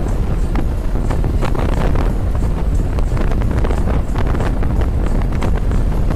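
Wind buffeting the microphone of a moving motorcycle: a loud, steady rumbling rush broken by frequent crackling gusts, over the bike's road and engine noise.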